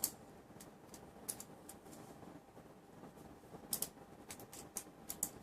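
Scattered sharp plastic clicks and taps from Paper Mate InkJoy retractable ballpoint pens being handled, several in quick pairs, over faint room hiss.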